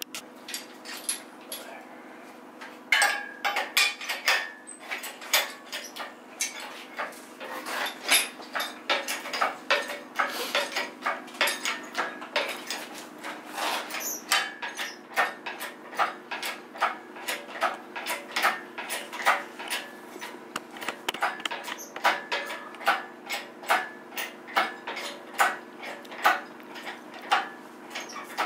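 Rapid metallic clicking and clacking, several strikes a second, over a steady hum, as the car is raised on its lifting mechanism.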